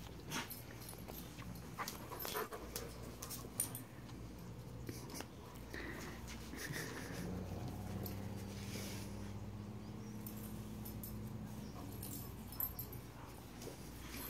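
A dog whimpering softly twice, about six seconds in, while a hand scratches its back, with rubbing and clicking of the hand in its fur. A steady low hum runs through the middle for several seconds.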